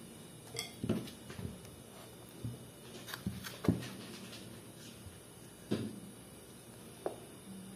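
Scattered light knocks and clinks of a bowl and kitchen utensils against a baking tray as bread batter is poured out and spread, about nine separate taps.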